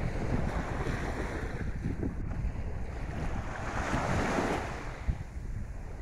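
Small sea waves washing up onto a sandy beach, with strong wind rumbling on the microphone. A wave swells into a louder wash about four seconds in.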